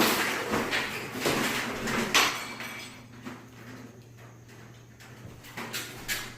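Scraping and knocking of an old window and its trim being worked loose from the frame: rough sliding scrapes and knocks over the first couple of seconds, then quieter, with two sharp knocks near the end.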